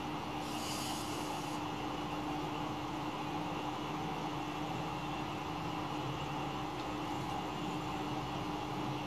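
Steady background noise with a constant low hum, and a brief high hiss about half a second in that lasts about a second.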